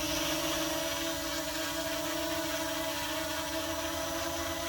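ZD6 Pro quadcopter drone hovering close by: a steady, even-pitched whine of its brushless motors and spinning propellers.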